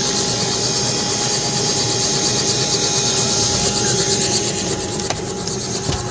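Helicopter turbine engine and rotor running steadily: a constant high whine over a fast, even rotor flutter.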